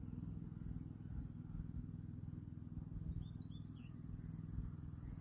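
Faint outdoor ambience: a low steady rumble, with a small bird chirping a few short notes about three seconds in.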